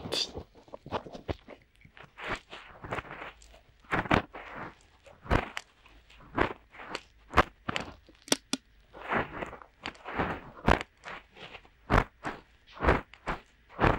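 Fingertips rubbing and poking into both ears of a binaural microphone as finger ear cleaning: a close, irregular run of crunchy scratches and soft thumps, about one or two a second.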